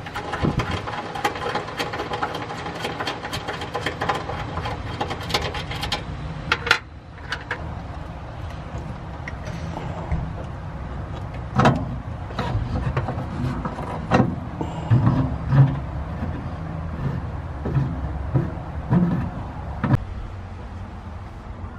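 Small metal clicks and knocks of hand work on a pickup's steel bed: bolts being taken out and rivet nuts being set with a red-handled hand rivet-nut tool. Sharp clicks come irregularly over a steady low background rumble.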